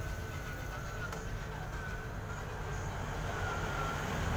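Small 9-volt battery-powered electric motor of a homemade cardboard toy train running, a thin high whine that wavers slightly in pitch, over a steady low rumble.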